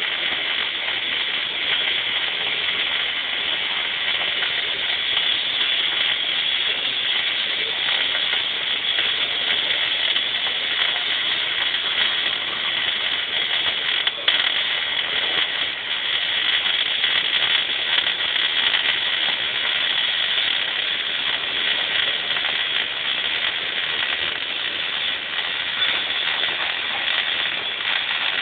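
Welding arc crackling and hissing steadily as a root pass is laid, with one sharp click about halfway through.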